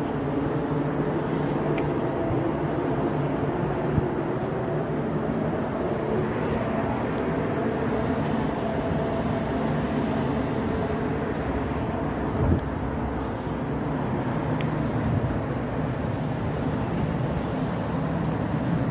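Steady low mechanical rumble with a faint hum, broken by two brief knocks, one about four seconds in and one about twelve seconds in.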